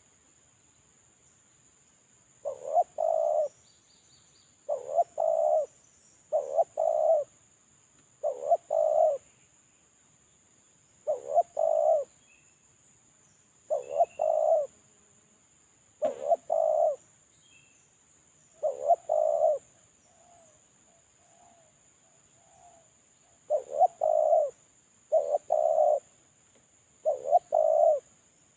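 Male spotted dove (terkukur) cooing, repeating the same short phrase of a quick note followed by longer coos about every two seconds. Near the middle there is a slightly longer pause with a few soft low notes.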